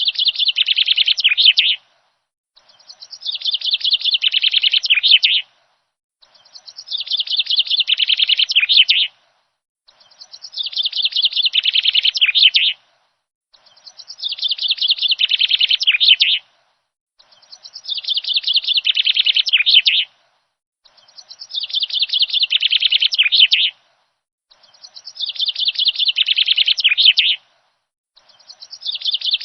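Rapid, high bird chirping in phrases about two and a half seconds long that swell in loudness. The phrase repeats identically about every three and a half seconds with dead silence between, like a looped recording.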